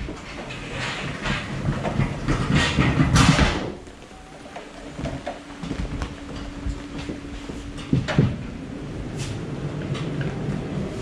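Hand pallet jack rolling and rattling over a truck trailer's floor as a loaded plastic pallet box is pulled aboard. The clatter is loudest in the first three and a half seconds, then goes quieter, with one sharp knock about eight seconds in.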